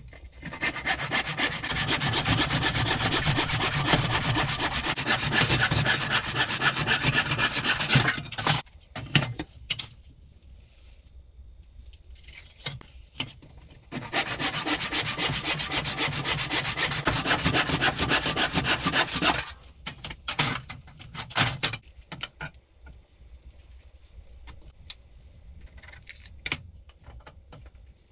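Hand saw cutting through a wooden board in steady back-and-forth strokes, in two long spells of several seconds each. Between and after the spells there are a few short knocks of wood being handled.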